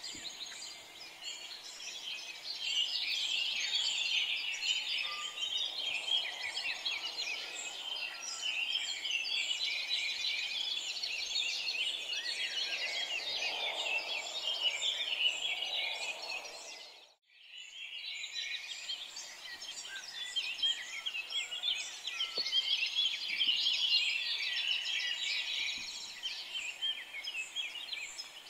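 Dawn-chorus-like mix of many small birds chirping and twittering at once. It dips to silence for a moment about two-thirds of the way through, then resumes.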